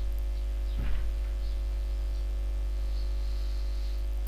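Steady electrical mains hum on the recording, with a brief faint sound about a second in.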